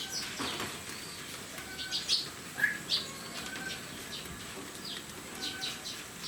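Small birds chirping: a scatter of short, high chirps and a few brief whistled notes over steady background hiss.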